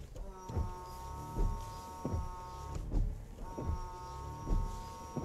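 A 3rd-gen Toyota 4Runner's windshield washer pump whines in two runs of about two and a half seconds each, with a short break between them, spraying through new Honda Odyssey nozzles. The wipers sweep the wet windshield with a knock at each end of their stroke, about every three-quarters of a second.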